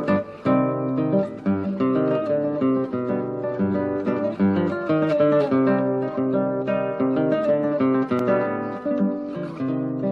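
Acoustic guitar music: a lively stream of plucked and strummed notes, each one ringing on.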